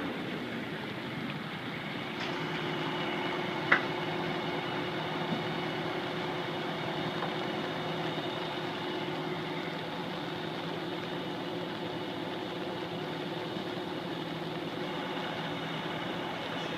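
Steady drone of idling diesel engines, typical of fire engines running their pumps at a fire, over an even hiss of rain. One sharp click about four seconds in.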